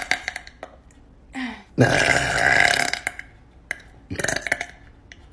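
A woman's long, loud burp about two seconds in, lasting a little over a second, with a shorter sound around four seconds in.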